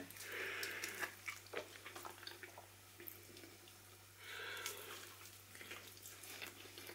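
Faint mouth sounds and small clicks of someone chewing tender smoked pork rib meat, over a steady low hum.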